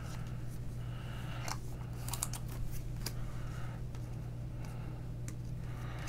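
Faint rustling and light clicks of trading cards being handled and flipped through, over a steady low hum.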